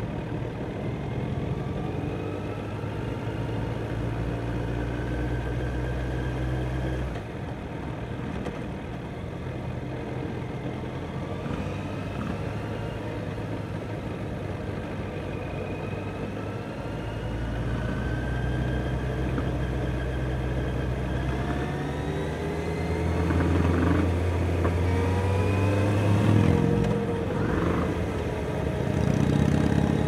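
Kawasaki Z900's inline-four engine running on the move, with repeated rising tones as it revs up and accelerates. It gets louder toward the end.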